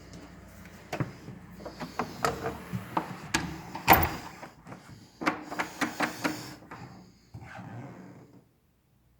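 A run of irregular clicks and knocks, like things being handled or a door or panel moving, with the loudest knock about four seconds in; it fades out to silence near the end.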